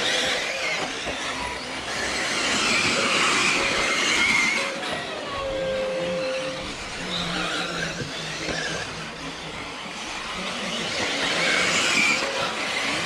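Radio-controlled race cars running around the track, their motors whining up and down in pitch with a hiss of tyres, the sound swelling and easing as the cars pass.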